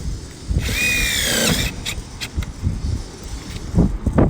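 Drill driving a screw through a cable boot into the metal roof in one short run of about a second, its motor whine falling in pitch as the screw bites and loads it. A few light knocks follow.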